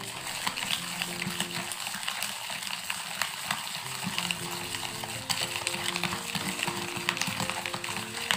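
A small stainless-steel mesh strainer beaten rapidly through thick coffee mixture in a ceramic bowl, whisking it into dalgona foam: a fast, dense run of clicks and swishes. Background music plays underneath.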